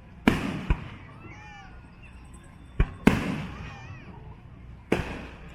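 Fireworks shells bursting in the air: five sharp bangs, two close together early on, two more around three seconds in and one near the end, each trailing off in a rolling echo.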